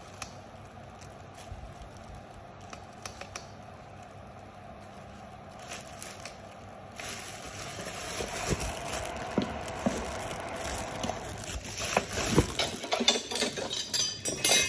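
Hands handling a light fixture and its plastic packaging. Scattered light clicks give way, about halfway through, to denser crinkling, rustling and knocks that grow louder near the end.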